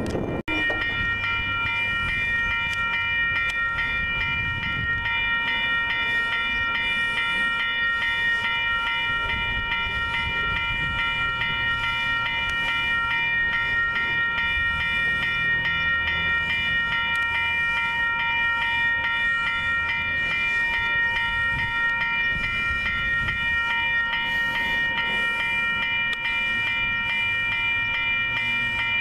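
Railroad grade-crossing warning bells ringing steadily and without a break, the signal that a train is approaching and the crossing gates are coming down.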